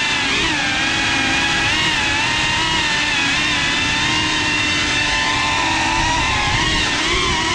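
GEPRC Cinelog 35 FPV drone's brushless motors and ducted propellers whining steadily in flight, heard close from the onboard GoPro. The pitch bends up and back down about half a second in and again near the end as the throttle changes.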